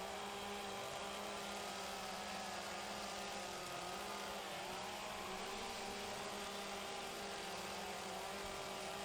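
Two-stroke chainsaws running steadily at a constant drone, their pitch dipping briefly about four to five seconds in.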